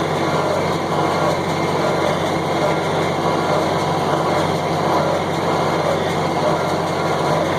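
John Deere 4020 tractor's six-cylinder engine running steadily under load, powering a John Deere 327 square baler as it bales hay.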